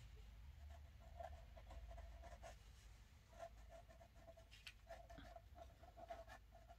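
Fine-tip 0.3 pen scratching faintly across watercolour paper in a string of short strokes, outlining painted shapes, over a low steady room hum.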